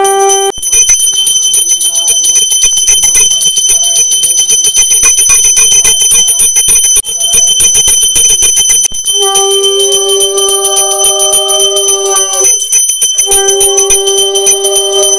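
Brass puja hand bell rung continuously in a fast, steady jangle. Over it, a conch shell is blown in two long, steady blasts of about three seconds each, the first starting about nine seconds in, during the ritual bathing of the deity.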